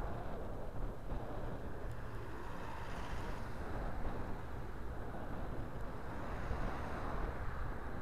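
Wind rushing over the microphone while cycling, mixed with road traffic; a van passing close alongside about halfway through.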